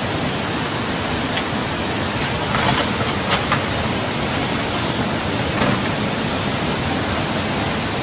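Fast-flowing floodwater rushing through a street, a steady, loud rushing noise with a few brief knocks around the middle.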